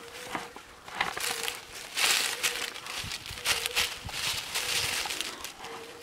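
Dry grass and fallen leaves rustling and crackling in irregular bursts as a small dog noses through them close to the microphone.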